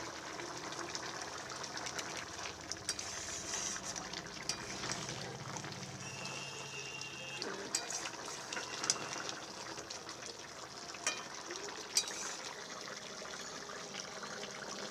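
Chicken curry simmering in a steel kadai as a spatula stirs it, with several sharp clinks of the spatula against the pan.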